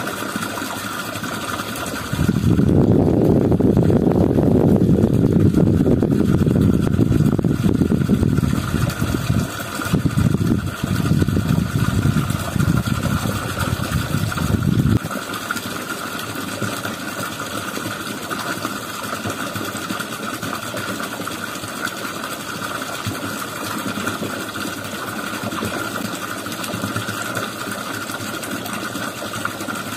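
Engine-driven water pump running steadily. A loud, rough low rumble rides over it from about two seconds in and cuts off suddenly about halfway through.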